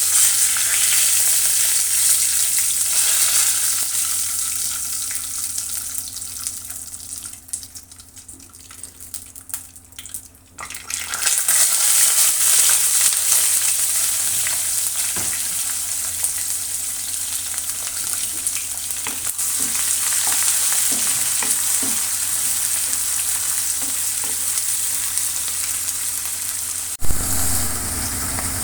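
Food sizzling as it fries in hot oil in a pan. The sizzle starts abruptly, dies down for a few seconds, then surges back loud about ten seconds in and keeps going. A brief knock comes near the end, over a steady low hum.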